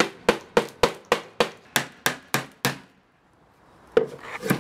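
Claw hammer driving a nail into a wooden board: a quick, even run of about ten strikes, roughly three a second, then a pause of about a second and two more strikes near the end.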